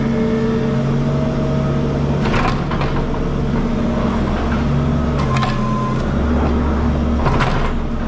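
Skid steer's diesel engine running steadily, with a few short clanks.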